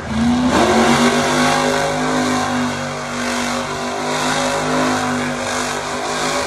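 Monster truck engine revving up, then held at high revs with a loud, steady note.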